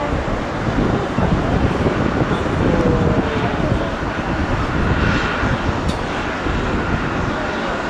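Airbus A340-600 jet engines, four Rolls-Royce Trent 500s, running loud and steady as a deep rumble. Faint whining tones ride on top, one gliding slightly lower about three seconds in.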